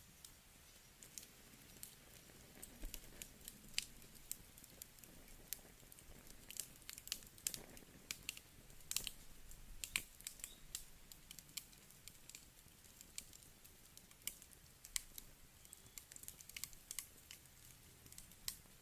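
Wood campfire crackling: irregular sharp pops and snaps over a faint, even hiss, busiest in the middle, with the loudest snap about ten seconds in.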